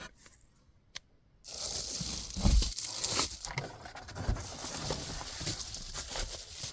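Close rustling and crinkling, like fabric or nylon being handled, starting suddenly about a second and a half in, with a couple of soft thumps among it.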